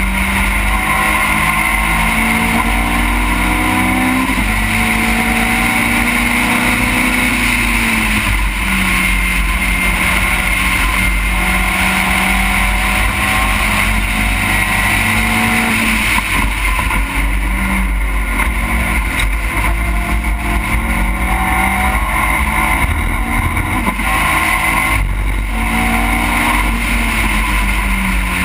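Engine of an open-cockpit Seven-type sports racing car at racing speed, its pitch climbing and falling back several times as it is driven hard through the gears and corners, with steady wind rush over the open cockpit.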